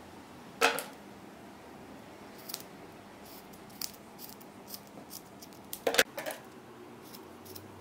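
Scissors snipping through macrame cord, trimming the ends of a tassel straight: a sharp snip about half a second in, a run of smaller clicks, and the loudest snips close together about six seconds in.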